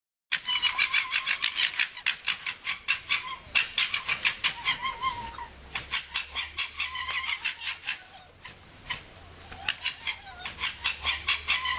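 A fox giving a fast chattering call, short high yelps repeated about six times a second in long runs, with a brief pause about eight seconds in before the chatter resumes.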